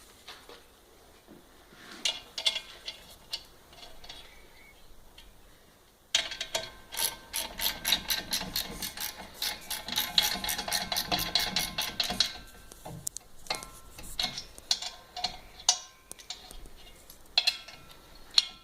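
A small home-made chain-and-sprocket mechanism turning with a fast, even ratcheting click, about five clicks a second, for around six seconds from about six seconds in. Scattered single clicks and knocks of handling come before and after.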